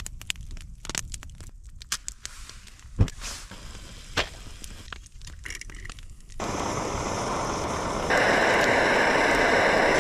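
Scattered sharp crackles and snaps. Then, about six seconds in, a camp stove burner starts with a sudden steady hiss that gets louder about two seconds later. The stove had been frozen.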